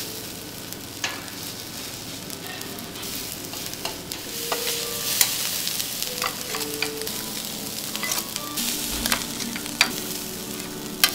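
Fried rice sizzling on a steel teppanyaki griddle while metal spatulas scrape across the plate, with a few sharp metallic clinks as the spatula strikes the griddle.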